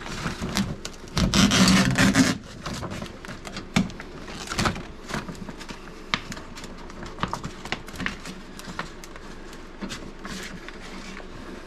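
Plastic vapor barrier sheet on a truck door's inner panel rustling and crinkling as it is handled and peeled back, loudest for about a second near the start, then scattered crackles and clicks.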